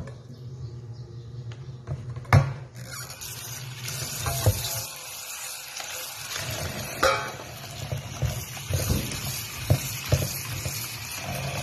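Water running and splashing into a stainless-steel sink over sliced bitter gourd in a plastic basin as it is rinsed by hand, starting a few seconds in after a metallic clunk of a steel bowl. A few knocks and a low steady hum run underneath.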